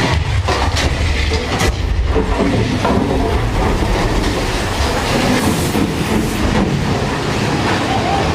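Big Thunder Mountain Railroad's mine-train roller coaster cars running along the track, a loud steady rumble with rattling wheels and a few sharp clacks about a second in.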